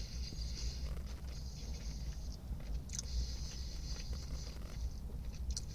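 A person chewing and biting into a fried chicken sandwich, with soft crunchy noises that come and go every second or two, over a steady low hum.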